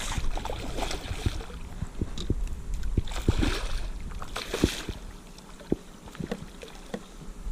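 Water splashing and sloshing beside a kayak, with scattered short knocks on the hull, as a large redfish is brought aboard. The splashing comes in a few surges, the strongest about three to four and a half seconds in.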